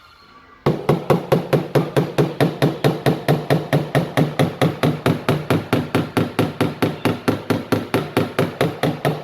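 Light, rapid hammer taps on a car door's sheet metal, starting about a second in and going on steadily at about five taps a second, each with a short metallic ring. This is the tap-down stage of paintless dent repair, knocking down a crease after the metal was glue-pulled.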